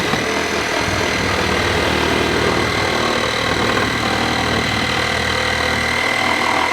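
Reciprocating saw running steadily while cutting through plywood wall sheathing, with a constant high whine and the loosened plywood rattling against the framing.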